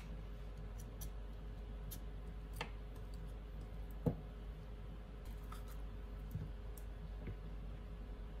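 Light clicks and knocks from a kitchen knife and avocado handled on a wooden cutting board, with one sharp knock about four seconds in as the knife blade strikes the avocado pit.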